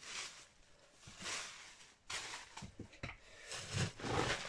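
Papery crackle and rustle of an empty wasps' nest being pulled apart and crumbled by hand, in several short bursts.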